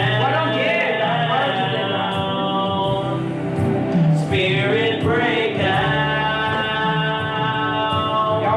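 Gospel music: voices singing long held notes.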